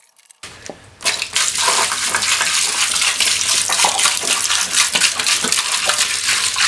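Hot water pouring from a plastic jug into a plastic tub of water, splashing steadily. It starts about half a second in and is at full level from about a second in.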